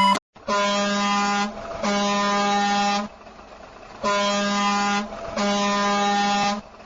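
Truck horn honking in two pairs of long blasts, each about a second long, on one steady low pitch.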